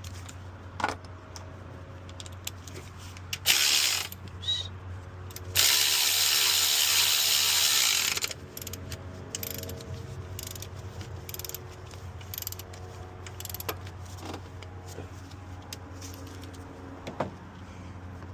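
Ratchet wrench clicking as the alternator's mounting bolts are worked after the belt tension is set. A loud, steady rushing noise lasts about two and a half seconds, from roughly the middle of the stretch, with a shorter one a little before it.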